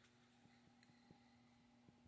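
Very faint, steady low hum of a 42-inch Alaska ceiling fan's motor running, with a few faint irregular ticks.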